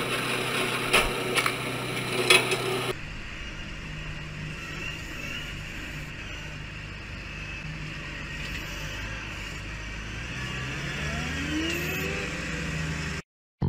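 A small log splitter running with a steady hum and a few sharp knocks of wood, for about three seconds. Then a tractor engine runs steadily at low revs, with a rising whine near the end, before the sound cuts off.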